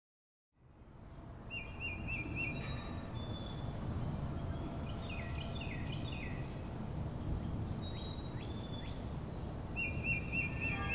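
Small songbirds chirping and trilling, one repeated trill coming twice, over a steady low background rumble. The sound fades in from silence within the first second.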